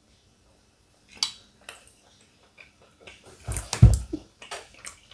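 Quiet table noises: scattered soft clicks and clinks of long fondue forks against the fondue pot and plates. A low thump comes a little under four seconds in.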